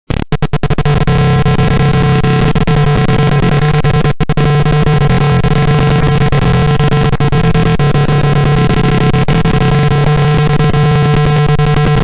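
Electronic buzzer of a simulated fire alarm circuit sounding a loud, steady, harsh tone. It starts abruptly, drops out for an instant about four seconds in, and cuts off abruptly at the end.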